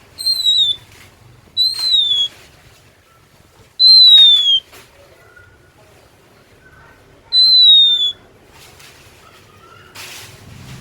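Oriental magpie-robin (kacer) singing four loud, clear whistled notes, each sliding downward in pitch, with a few soft quiet notes in between.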